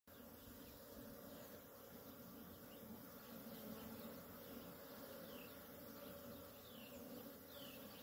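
Faint, steady buzzing of many honeybees flying in and out of the hive entrance, a continuous hum of wings.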